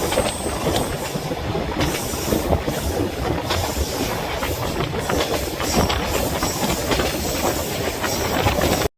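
Sleeper train running along the track: a steady rumble and hiss with many irregular clacks and rattles.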